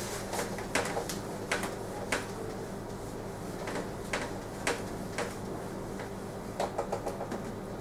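A whiteboard being wiped with an eraser: a series of short, irregular scrubbing strokes, a few of them close together near the end, over a steady low electrical hum.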